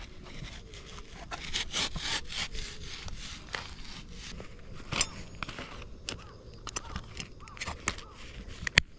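Dry sticks and brush being handled while gathering firewood: irregular crackling, snapping and scraping of wood, with a sharp snap near the end.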